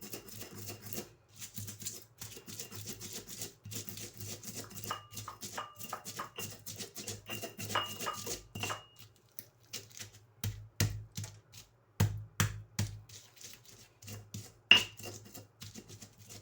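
Spices being ground by hand with a pestle in a mortar (Indonesian ulekan and cobek): quick scraping and knocking strokes, some with a short ringing clink. A few heavier pounding thuds come about two-thirds of the way through, and one sharp loud knock comes near the end.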